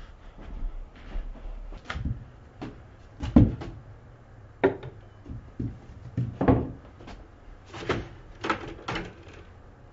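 Irregular knocks and clatters of objects being handled on a small table, about a dozen, several of them sharp.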